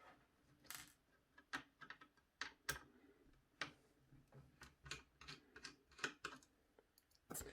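Faint, irregular small clicks, about two a second, of a small screwdriver working the screws out of a motherboard's M.2 SSD cover.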